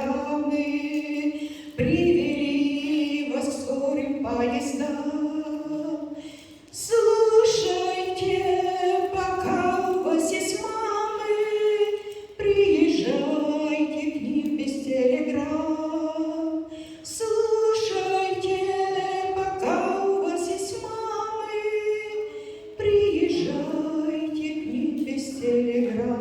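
A choir singing a cappella, mostly women's voices in harmony, in long held phrases of about five seconds each with short breaths between them.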